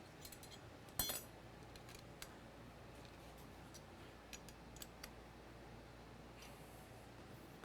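Scattered light metallic clinks and ticks from tools and bike parts being handled, the loudest a sharp clink with a brief ring about a second in.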